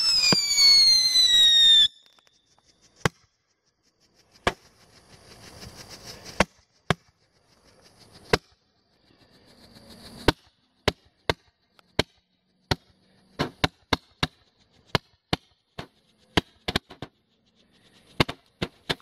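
Firework whistle falling steadily in pitch for about two seconds, then cutting off sharply. A string of sharp firework pops follows, a few seconds apart at first and coming faster in the second half, with faint hissing that builds up into some of them.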